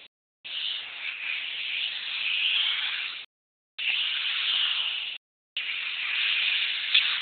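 Airbrush spraying textile paint at 80 psi: three bursts of steady air hiss with short breaks as the trigger is pressed and released. The first burst lasts about three seconds, the next two about a second and a half each.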